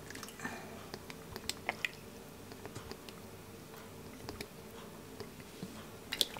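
Thick tamarind pulp poured from a plastic bottle into a plastic measuring cup: faint scattered small clicks and soft pouring sounds, with a few sharper clicks near the end.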